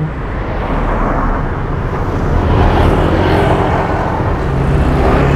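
Road traffic passing close by: motorcycle and car engines with tyre noise, swelling and fading, loudest about three seconds in.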